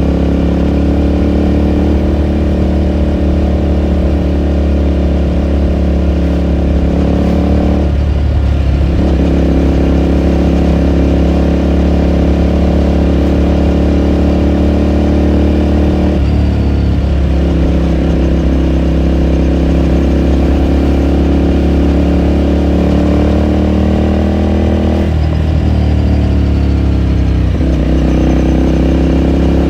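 Ducati Scrambler Sixty2's 400 cc air-cooled L-twin running under way at steady revs, heard from the rider's position. The engine note breaks briefly and settles again about four times, as the throttle is eased off and reopened or a gear is changed.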